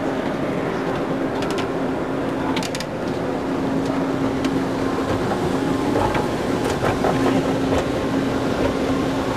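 Elevator car travelling: a steady mechanical hum with a held low tone, and a few light clicks and rattles about one and a half and two and a half seconds in.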